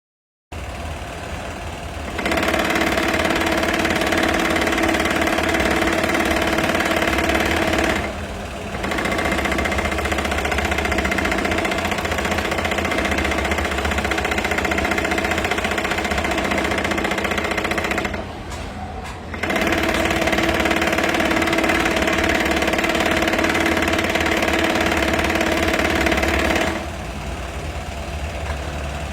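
Xingchi 8B industrial cylinder-bed compound-feed lockstitch sewing machine running at a steady speed in three long sewing runs, stopping briefly about eight and eighteen seconds in and again near the end. A low motor hum carries on through the stops.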